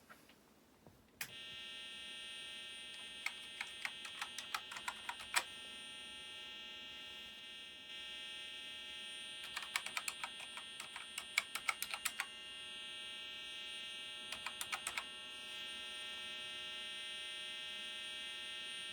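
Acorn BBC Micro Model B sounding a steady, unbroken buzzing tone through its internal speaker from about a second in, a weird noise from a machine that has powered up but has not booted properly. Three runs of quick clicks come over it, typical of keys being pressed on its keyboard.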